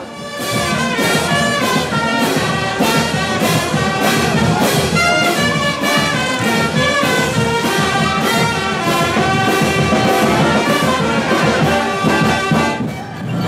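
Brass band music: a lively tune on brass instruments over a steady drum beat of about two to three beats a second, dipping briefly just before the end.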